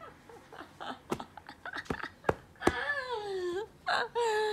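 A woman laughing, letting out two long cries that fall in pitch, after a few sharp knocks.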